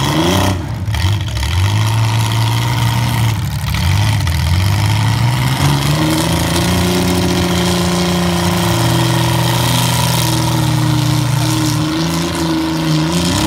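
Modified compact demolition derby cars' engines revving hard under load as the cars shove against each other. The pitch climbs in several surges, holds high through the middle, and falls back near the end.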